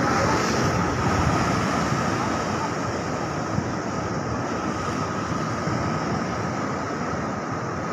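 A boat's motor running steadily with a constant whine, over rushing, splashing water churned up along the hull and wind buffeting the microphone.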